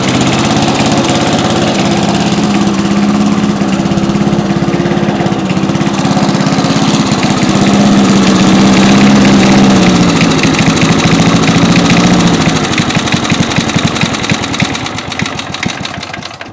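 Small single-cylinder engine of a 1964 Cooper Cyclo-Vac self-propelled rotary mower running steadily. About twelve seconds in it is shut off and fades away over the last few seconds.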